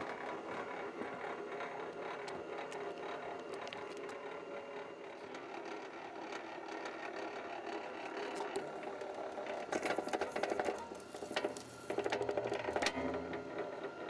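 BLUEROCK MWS-808PMO motorized wire stripper running: its 1 HP electric motor and gear drive turn the top cutting roller and bottom feed roller as thick stranded THHN copper cable is fed through. Steady mechanical clatter, with louder bursts of rapid clicking about ten seconds in and again near the end.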